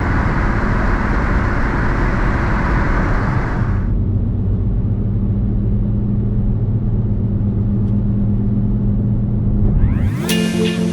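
Vehicle running, a steady rumble of noise with a low, even hum under it. The hiss on top drops away about four seconds in, and music rises in near the end.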